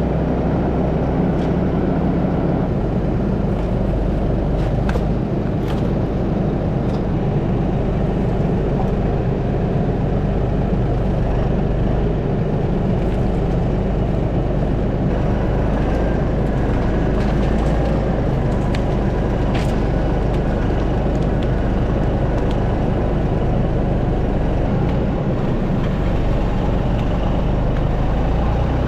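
A motor vehicle's engine running steadily, with a few faint clicks or knocks over it.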